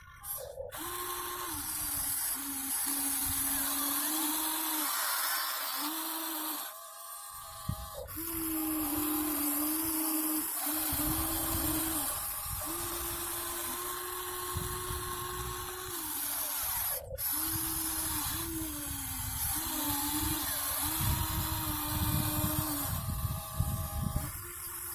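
Huina 1593 radio-controlled excavator's small electric motors whining, the pitch dipping and rising as it is worked, with a rough low rattle that comes and goes.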